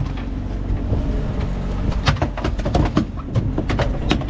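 Wind buffeting the microphone aboard a small boat on choppy water, over a steady low rumble, with a handful of sharp knocks between about two and four seconds in.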